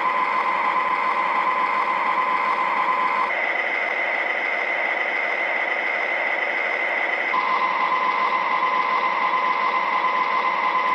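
Steady diesel engine sound from an MTH O-scale ES44AC model's Proto-Sound 3.0 system, played through the locomotive's small onboard speaker, with little real bass. A steady tone in the drone drops out about three seconds in and returns about seven seconds in.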